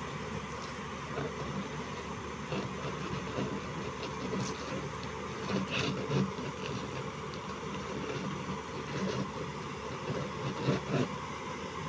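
JCB 205 tracked excavator running steadily under load as its boom, bucket and tracks work to move it off a lowbed trailer, with a few louder knocks about halfway through and again near the end.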